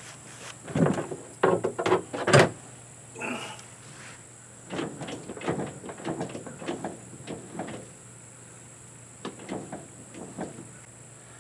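A series of knocks and clatters of hard objects being handled. The loudest comes as one sharp bang about two seconds in, followed by lighter scattered clicks and rattles.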